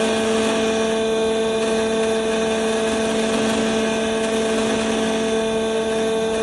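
Doosan Lynx 220 LMA CNC lathe running, a steady machine hum with a constant pitched whine that does not change.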